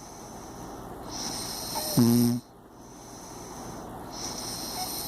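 Snoring: a slow, rising breath, then a short, loud pitched snore about two seconds in that cuts off abruptly, one beat of a snore that comes round roughly every three seconds.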